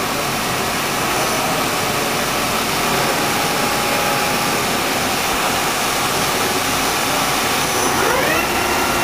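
Dainichi MG75 CNC lathe's geared headstock running its spindle at a steady 100 RPM in the low gear range, an even machine noise, with a rising whine near the end.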